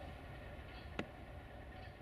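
Low rumble of a departing freight train slowly fading away, with one sharp click about a second in.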